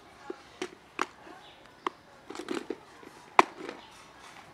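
A plastic food container being handled and tapped on asphalt: a series of sharp plastic clicks and knocks, the loudest about three and a half seconds in.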